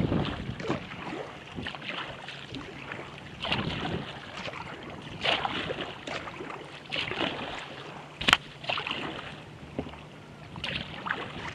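Choppy water slapping and splashing irregularly against a sea kayak's hull close to the microphone, over a steady rush of wind; one sharp slap about two-thirds of the way through is the loudest.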